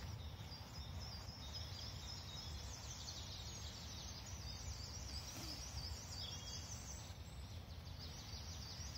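Wild birds singing: many short high chirps and trills repeating quickly, over a low steady rumble.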